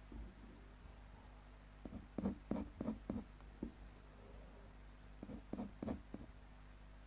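Ink pen scratching on paper in quick, short hatching strokes: two clusters of faint strokes, the first about two seconds in and the second about five seconds in, over a steady low hum.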